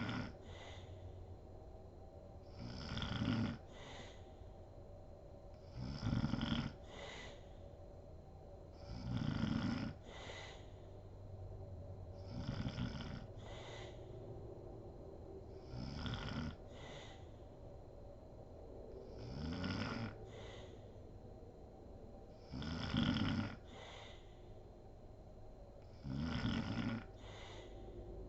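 A woman snoring in deep sleep, a steady rhythm of about one snore every three seconds, each a low snore followed by a short breathy hiss.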